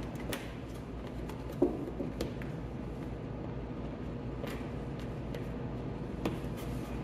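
Light clicks and taps from hands and a small tool working epoxy putty onto a vinyl window frame, over a steady low hum. One sharper tap comes about one and a half seconds in.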